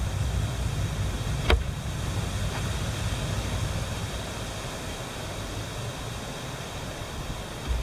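Wind buffeting the microphone: a steady low rumble with a hiss over it, easing in the second half, with one sharp click about a second and a half in.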